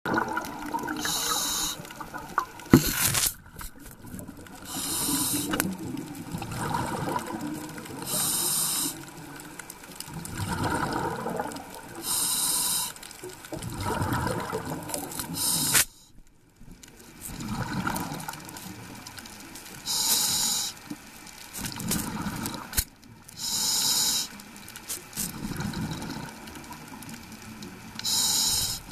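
A scuba diver breathing through a regulator underwater: a hiss of air on each breath about every four seconds, with a bubbling rush of exhaled air between breaths. There are a few sharp knocks, around three seconds in and again near the middle.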